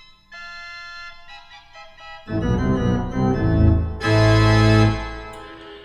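Organ music: soft sustained chords, then a louder passage with low bass notes. A loud held chord comes about four seconds in and falls away about a second later.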